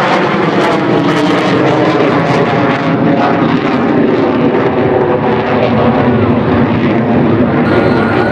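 F/A-18 Super Hornet's twin jet engines roaring loudly as the fighter flies its display, a steady roar whose pitch sags slightly as it passes.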